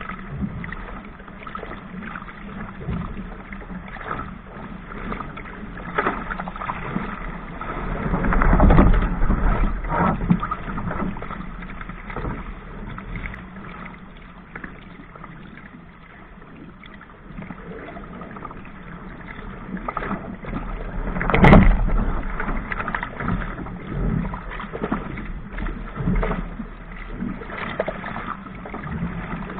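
Water rushing and splashing against the hull of a small sailing dinghy under way. There are two louder slaps, about nine seconds in and about twenty-one seconds in.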